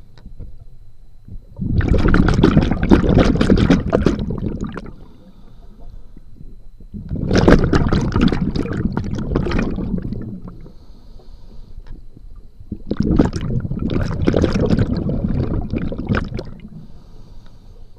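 Scuba diver's regulator exhaust heard underwater from right beside the diver's head: three long bursts of exhaled bubbles about five and a half seconds apart, with a faint hiss between them.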